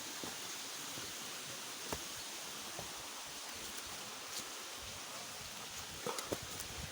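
Steady rush of flowing water from a waterfall stream, an even hiss with a few faint small clicks and rustles over it.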